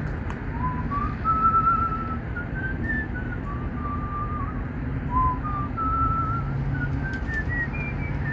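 A man whistling a tune, a string of short notes stepping up and down, over a steady background hiss.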